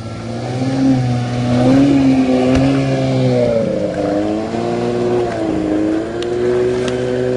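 Motorboat engine sound effect: a steady engine drone whose pitch wavers up and down.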